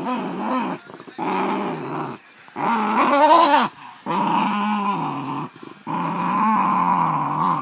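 Basenji growling in five long, pitched bouts with a warbling rise and fall, the loudest about three seconds in: a warning growl over a contested toy.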